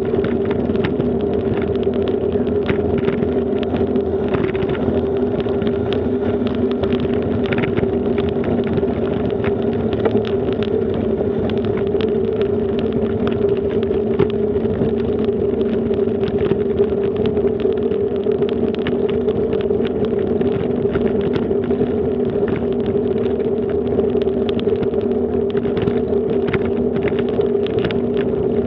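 Bicycle rolling over a brick-paved path: a steady droning hum with frequent small rattling clicks from the bike.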